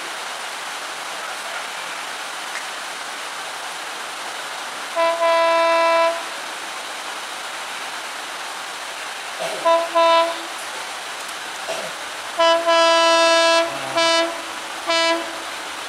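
Electric locomotive horn sounding a series of blasts as the train approaches: one blast of about a second, two short blasts, a longer blast, then a short one near the end. Steady hiss of heavy rain underneath.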